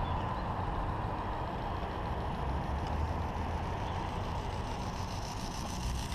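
Steady wind noise with a low rumble on the microphone outdoors.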